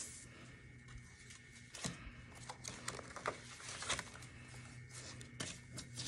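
Paper banknotes and binder pages rustling softly as bills are handled, counted and slipped into a binder's cash envelope: a scattering of faint, crisp flicks over a low steady hum.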